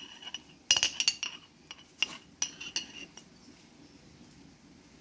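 A utensil clinking against a glass pickle jar while pickles are fished out. The sharp, ringing clinks come in several quick clusters and stop a little after three seconds in.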